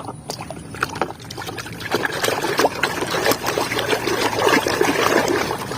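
Water splashing and trickling as a muddy toy truck is swished and rinsed by hand in a basin, with small knocks and splashes that grow busier after a couple of seconds.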